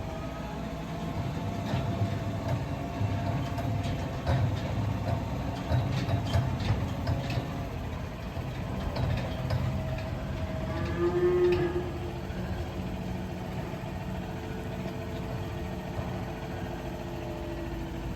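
An Angus cow moos once, about ten seconds in, over a steady low rumble. A few sharp knocks come earlier.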